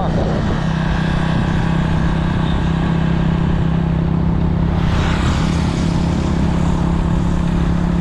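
Motorcycle engine running steadily while riding at road speed, over a constant rushing of wind and road noise. A brief louder rush of noise comes about five seconds in.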